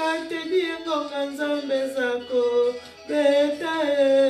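A woman singing a slow, unaccompanied melody with long held notes that slide between pitches.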